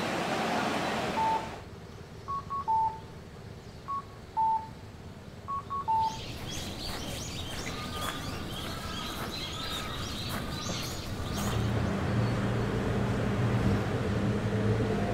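Electronic beeps repeating three times, each time two short higher beeps and then a longer lower one, followed by birds chirping, then from about eleven seconds in a steady low engine hum like an idling bus.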